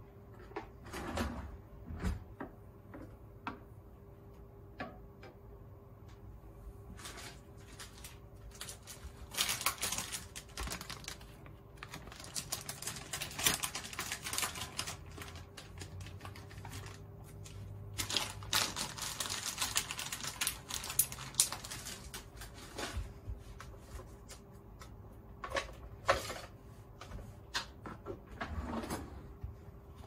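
Bursts of light, rapid clicking and clattering from small kitchen things being handled, several seconds long each, over a steady faint hum.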